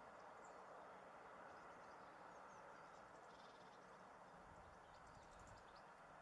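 Faint, scattered high chirps of small garden birds over a steady background hiss.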